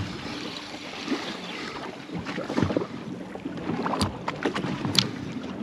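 Wind on the microphone and water lapping against a boat's hull, with two sharp clicks about a second apart near the end.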